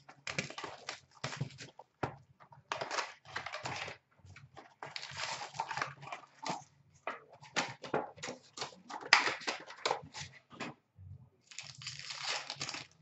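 An 18-19 Upper Deck Trilogy hockey card box and its foil packs being torn open and handled by hand: irregular crinkling and tearing rustles in short bursts.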